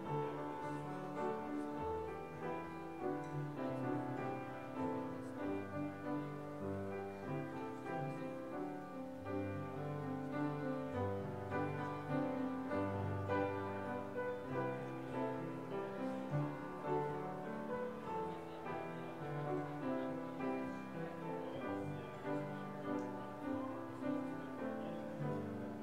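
Piano playing a slow instrumental offertory: held chords over a bass line that moves every second or two.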